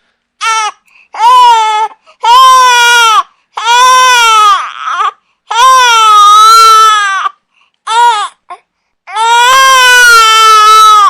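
Infant crying hard: about seven loud wails, a few short and most over a second long, each rising and falling in pitch and broken by brief silent gaps.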